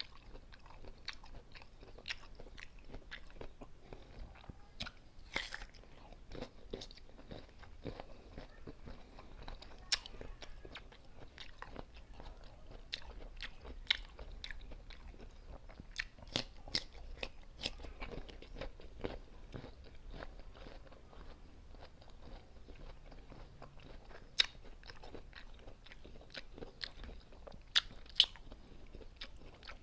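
A person biting and chewing crisp unripe green mango: a continuous, irregular run of crunches, a few of them sharper and louder than the rest.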